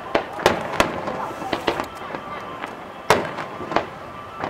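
Aerial firework shells bursting: a run of sharp bangs at uneven intervals, the loudest about half a second in and again just after three seconds.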